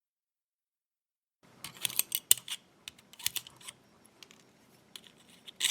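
Irregular light clicks and ticks of small metal lock parts (springs and pins of a dimple-lock cylinder) being handled on a hard work surface. They begin after about a second and a half of dead silence.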